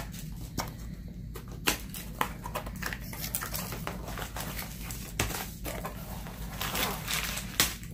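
A Diamond Art Club kit box being handled and opened by hand: cardboard and plastic wrapping rustle, with irregular light taps and knocks as the contents are slid out and set down on the table, over a low steady hum.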